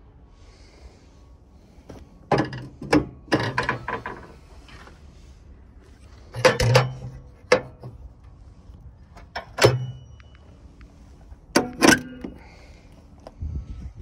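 Metal clanks and knocks from parts and tools being handled in a car's engine bay. They come in several short bursts of quick strikes, with a duller thud near the end.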